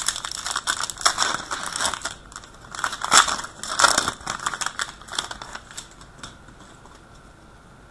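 A trading card pack's foil wrapper crinkling and tearing as it is opened. It is a run of dense crackles that stops about six seconds in.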